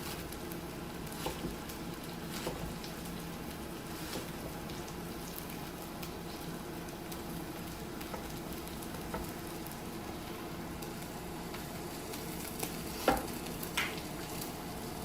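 Cabbage and scallions sizzling steadily in hot oil in a pan, with a few sharp clicks scattered through, the loudest about 13 seconds in.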